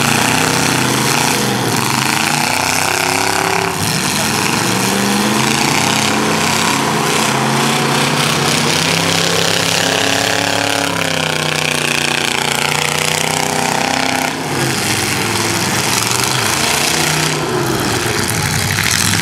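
Engines of several demolition derby cars running and revving together, their pitch rising and falling over a few seconds at a time.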